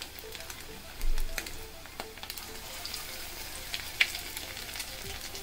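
Cornstarch-coated chicken lollipops deep-frying in hot oil: a steady sizzle with scattered crackling pops. A low thump sounds about a second in.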